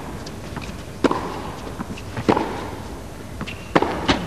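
Tennis rally: the ball struck back and forth by rackets, heard as four sharp hits and bounces, each a second or so apart.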